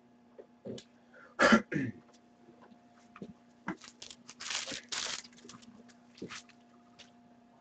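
A person coughs once, loudly, about a second and a half in, followed by scattered rustling and small clicks, over a steady low electrical hum.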